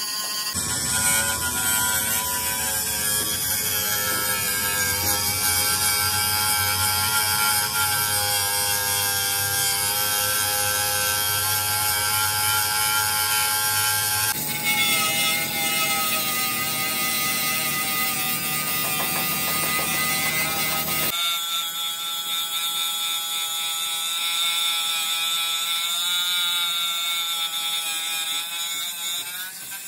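Steady, high whine of workshop power tools running. It cuts abruptly to a different pitch about halfway through and again about two-thirds of the way in.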